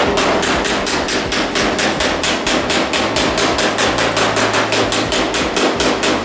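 A stubby ball peen hammer rapidly beating a tacked-on sheet-metal band down against a truck's body panel, in an even run of several blows a second. The blows close the gaps where the band isn't touching, ready for stitch welding.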